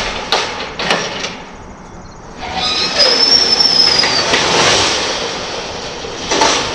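A few sharp metal clicks, then a heavy steel trailer tailgate lowered on its hinges: a loud scraping rush with a bending metallic squeal for about three seconds, and a clank near the end.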